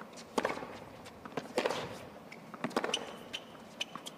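Tennis rally on a hard court: a ball struck back and forth by racket strings, making sharp knocks about once a second, with ball bounces between them.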